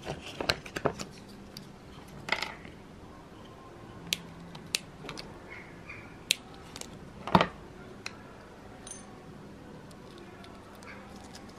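Small hand-work sounds at a workbench: a quick rattle of plastic as a parts organizer of heat-shrink tubing is rummaged, then a few scattered sharp clicks and a louder knock with rustling as pieces of tubing and cable are handled.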